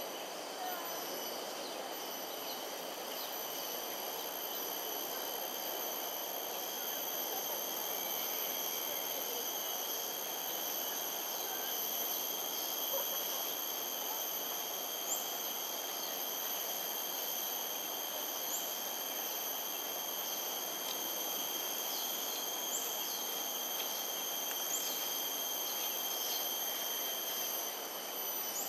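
Steady outdoor insect chorus: several high, continuous trilling tones over an even background noise, with a few short, high, rising chirps in the second half.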